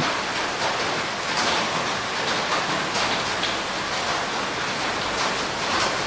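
Steady heavy rainfall, an even hiss with scattered drops striking surfaces.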